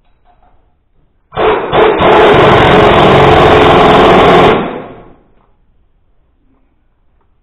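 Impact wrench hammering in one very loud burst of about three seconds, starting suddenly and tailing off as it stops.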